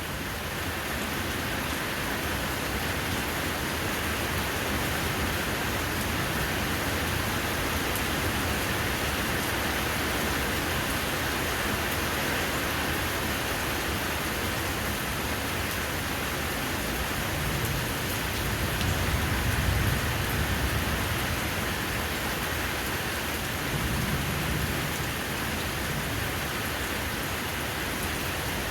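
Steady rain falling on a patio, an even hiss. A low rumble swells up twice in the second half, the louder one about two-thirds of the way through.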